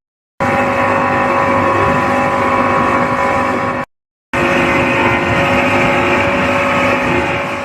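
Outboard engines of a rigid-inflatable boat running steadily at speed, a constant hum with several fixed tones. It comes in two stretches, broken by short silent gaps at the start and about halfway through.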